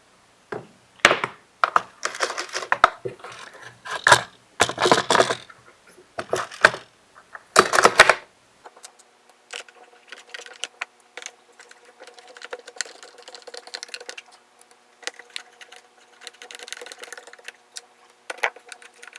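Clicks, scrapes and rattles of a two-stroke leaf blower's plastic housing being handled as screws are driven in, louder for the first several seconds and then fainter scattered clicking.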